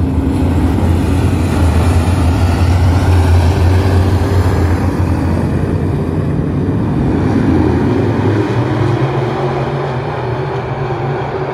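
A pack of IMCA modified dirt-track race cars, V8 engines at racing speed, running together around the track. The low engine drone is loudest for the first eight seconds or so, then eases as the pack moves off down the far side.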